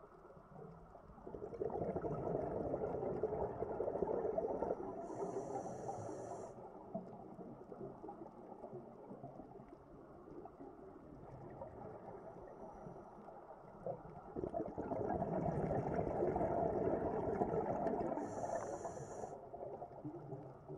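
Scuba diver breathing underwater through a regulator: a long rush of exhaled bubbles, ending in a short high hiss, heard twice about thirteen seconds apart.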